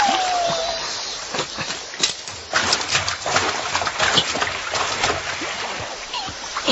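River water splashing and sloshing, with many irregular short splashes. At the very start a single clear call glides downward for under a second.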